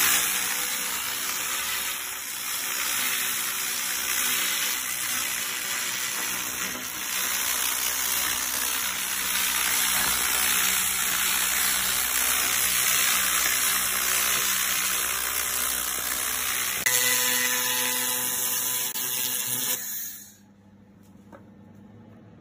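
2000 W handheld fiber laser head firing on a steel channel section, the beam striking the metal with a steady, loud crackling hiss. It starts suddenly, a steadier hum joins in about 17 seconds in, and it cuts off abruptly about 20 seconds in.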